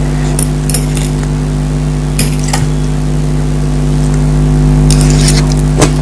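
Eating sounds close to the microphone: short clicks and clinks of cutlery against a plate and crunchy chewing, a few single ones and a quick cluster near the end. Under them runs a steady low hum with fixed tones.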